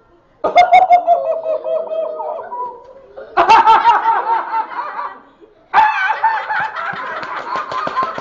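High-pitched laughing in three long bursts with short breaks between them.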